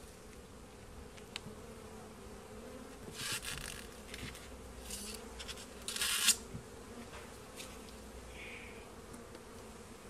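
Honeybee colony buzzing steadily in an open hive. Two short scraping noises, about three and six seconds in, as the gloved hands work the frames in the box.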